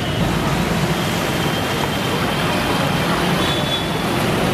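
Steady street traffic noise from vehicle engines running on a waterlogged road.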